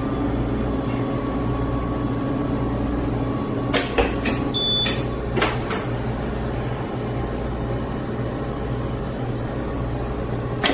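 Steady hum of a commercial convection oven running at 450 with the kitchen's ventilation. About four seconds in come a few metallic clicks and knocks as the pan goes onto the oven rack and the glass door is shut, with one short high electronic beep from the oven's control panel as the timer is set.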